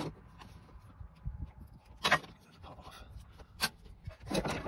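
Hand tools being handled: two sharp clacks, about two seconds in and again a second and a half later, then a burst of rustling and scraping near the end, over a low wind rumble on the microphone.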